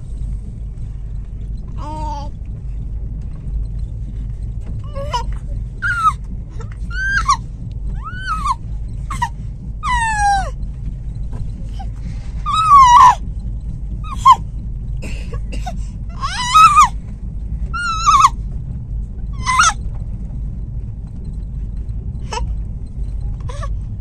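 Infant squealing and cooing in a string of short, high calls that rise and fall in pitch, the loudest about halfway through. Under them runs the steady low rumble of the train coach.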